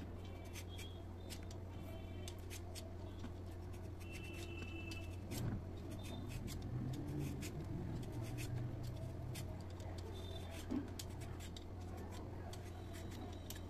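Handheld vegetable peeler scraping the skin off a raw potato in many short, quick strokes, over a steady low hum.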